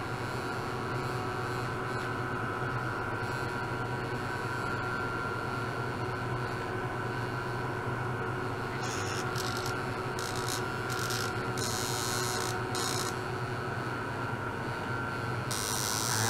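Steady electrical hum with thin, faint whining tones from electronic lab equipment running. About nine seconds in, a high hiss starts cutting in and out, and near the end it stays on.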